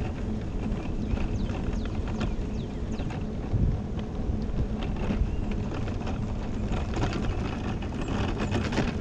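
Wind rushing over the microphone as an electric mobility scooter rolls along a road, with a low steady hum and scattered light clicks and rattles.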